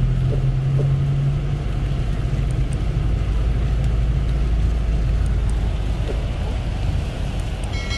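Passenger van driving on a wet road, heard from inside the cabin: a steady low engine drone with tyre and road noise. The hum is strongest in the first second and a half, and a brief pitched sound comes near the end.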